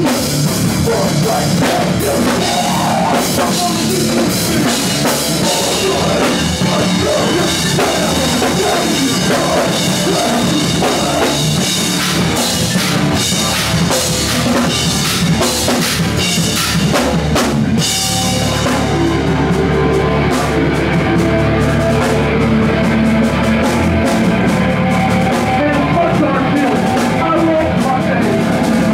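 Live rock band playing loud: drum kit with crashing cymbals under distorted guitars and bass. About two-thirds of the way through the cymbals drop out and held guitar chords ring on over the bass and drums.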